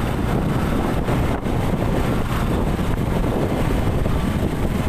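Wind rushing over the microphone with steady road and engine noise from a moving motorcycle.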